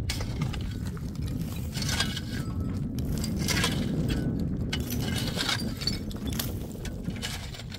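Irregular clinks and scrapes of hard objects being handled, about a dozen sharp strikes spread unevenly, over a steady low rumble.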